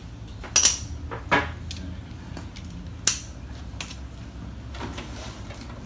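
Metal hand tools and parts clinking and tapping during work on a motorcycle's rear shocks. A few sharp clinks come about half a second in, again near one and a half seconds and near three seconds, with lighter ticks between them.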